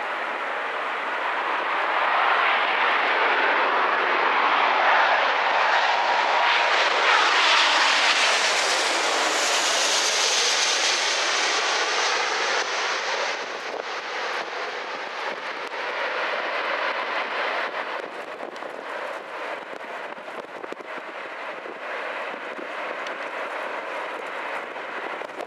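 Jet airliner engine noise at close range as a plane passes low overhead. It builds to a peak about eight to ten seconds in, with a high whine sweeping down at the top, then falls away into a lower, steady jet roar.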